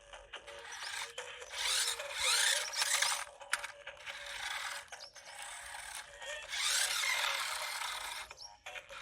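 Toy remote control car's small electric motors and plastic gears whirring in bursts of a second or two, with short pauses between them. The pitch glides up and down as the car speeds up and slows.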